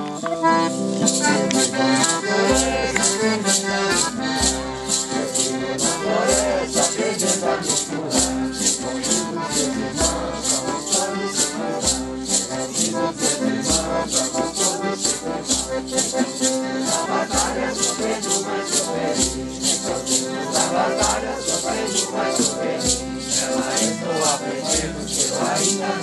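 A Santo Daime hymn sung by a group, with maracas shaken on a steady beat of about two strokes a second over deep pulses and other instruments.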